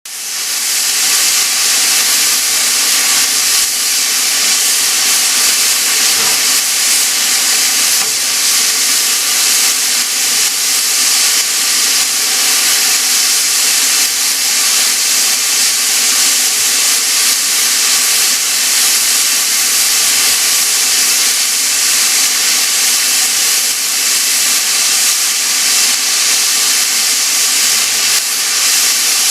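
Stationary steam locomotive venting steam pressure: a loud, steady hiss that fades in over the first second and then holds even.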